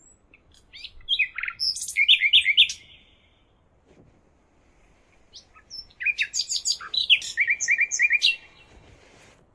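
A songbird singing two bursts of quick, varied chirps and trills, the first about a second in and the second about six seconds in.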